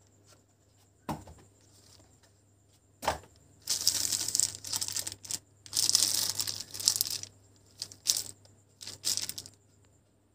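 Clear LDPE plastic sleeve crinkling as it is pulled off a laptop's lid, in several bursts, the longest in the middle. Two short knocks come before it.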